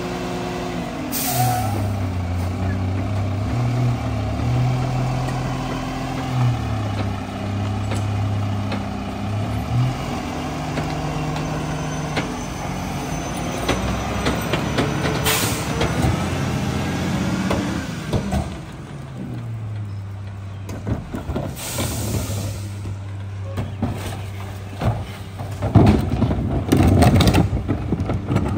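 Mack garbage truck's diesel engine revved up while the McNeilus rear loader's hydraulic packer cycles, then dropping back to a steady idle about two-thirds of the way through. Short hisses of air come three times, and near the end trash cans knock against the hopper as they are dumped.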